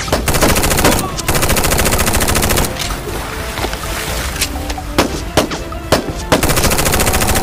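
Rapid-fire gunshot sounds over background music: a long burst in the first couple of seconds, a few single shots in the middle, and another long burst near the end.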